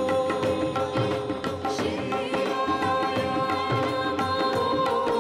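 Indian devotional music: tabla beating a steady rhythm under long held notes.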